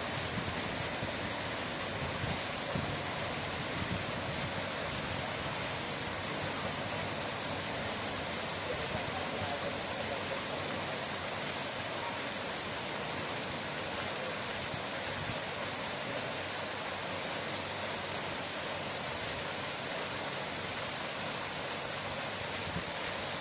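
Steady rushing of running water, an even hiss with no breaks or changes.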